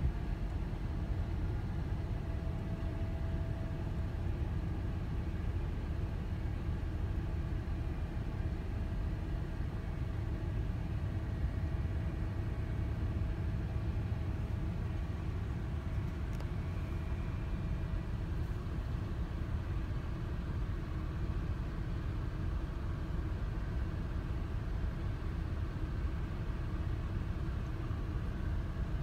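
Steady low rumble of idling vehicle engines, with a faint thin whine that comes and goes during the first half.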